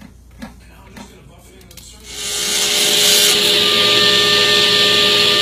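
Woodworking power tool running into wood, starting about two seconds in: a loud steady hiss with a steady whine.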